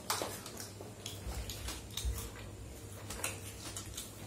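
Chewing and biting noises with faint, irregular clicks and taps of eating.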